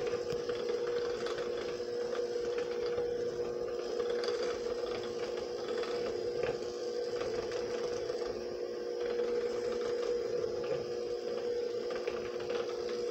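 Electric hand mixer running steadily with an even motor hum, its beaters whipping powdered sugar into cream cheese and butter frosting in a glass bowl.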